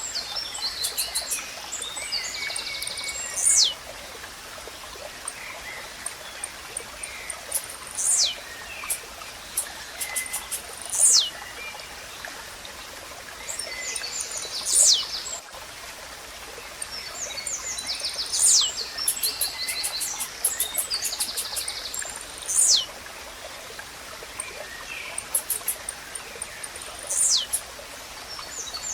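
Blue-black grassquit (tizil) singing its short falling whistled 'tizíu' note seven times, about every three to four seconds. Between the notes come bursts of rapid ticking chirps, over a steady background hiss of nature ambience.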